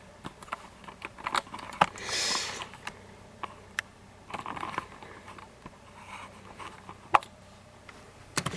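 Handling noise as something is unscrewed: scattered small clicks and taps, a brief rubbing hiss about two seconds in, and a sharper click near the end.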